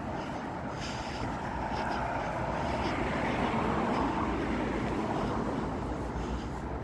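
Road traffic: a vehicle passing, its noise swelling about three seconds in and then easing.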